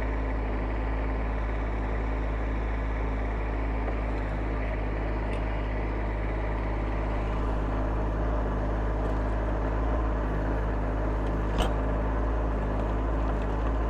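Kubota compact tractor's diesel engine running steadily at a constant speed while the backhoe works, with one sharp metallic click near the end.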